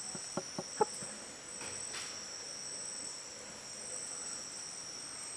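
Steady, high-pitched drone of a rainforest insect chorus, with a quick run of light knocks in the first second.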